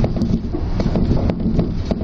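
Running noise of a Shōnan Monorail suspended Safege-type train heard inside the car: a steady low rumble from the rubber-tyred bogies in the overhead box track, with scattered light clicks and knocks.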